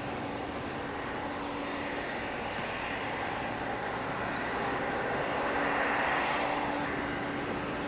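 Steady engine drone with a low hum, swelling a little about five seconds in.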